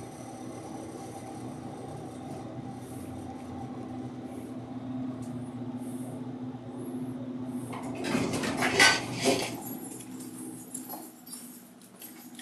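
Otis elevator car running with a steady hum, then about eight seconds in it stops and the doors open with a loud metallic clatter and rattle, followed by a few light knocks.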